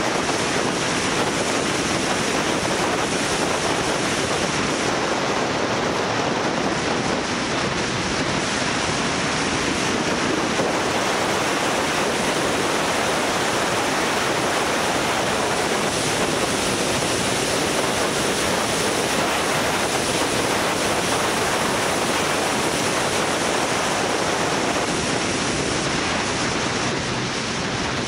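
Steady rush of wind on the microphone of a camera mounted on a motorcycle being ridden at road speed.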